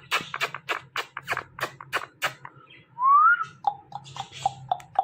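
Ringneck parakeet vocalising: a quick run of sharp clicks, about four a second, then one loud rising whistle about three seconds in, followed by a string of short, even chirps at about the same pace.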